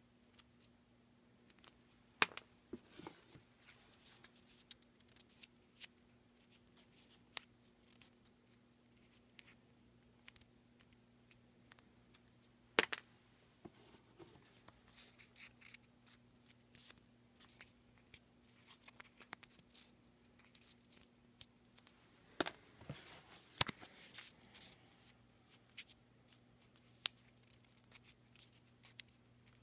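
Small paper raffle tickets being folded by hand and dropped into a cardboard box: scattered crisp paper clicks and rustles, busiest about three quarters of the way through, over a faint steady hum.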